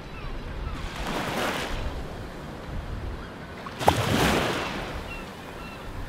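Surf-like rushing noise that swells twice, about three seconds apart, over a low rumble. The second swell opens with a sharp knock.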